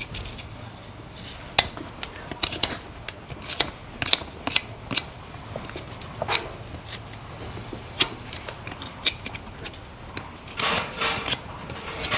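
Farrier's hand tools working a horse's hoof: irregular sharp clicks and scrapes, with a denser run of scraping near the end, over a low steady hum.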